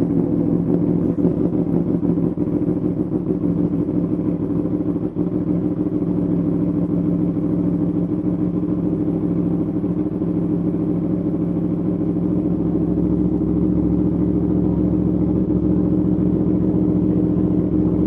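Yamaha YZF-R1's crossplane inline-four engine, breathing through an Arrow Pro race exhaust, idling steadily just after start-up.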